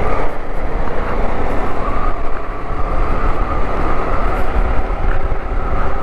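KTM motorcycle running at road speed, with steady wind rush buffeting the microphone over the engine.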